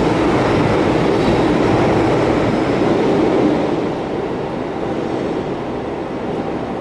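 Cabin noise inside a moving rapid express commuter train: a steady rumble of wheels on track and running gear, easing somewhat a little over halfway through.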